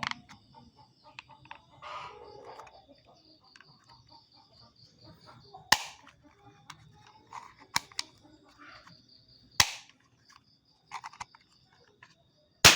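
Sharp snapping clicks from a pistol-shaped lighter being triggered, four of them a couple of seconds apart, the last the loudest.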